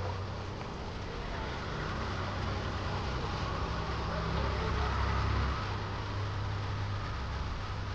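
Car engine running with steady road noise, a low rumble under a broad hiss, cutting off suddenly at the end.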